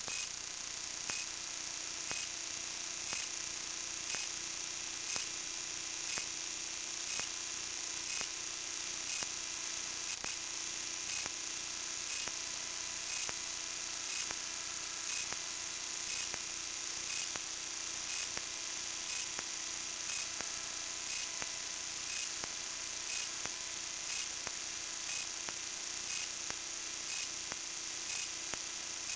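Steady electronic hiss and hum from a small kite-borne camera's own circuitry, with a faint tick about once a second; no wind rumble or water is heard.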